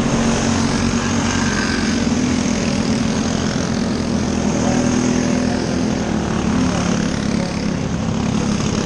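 Engines of small winged micro sprint race cars running at racing speed, a loud steady drone that carries on without a break.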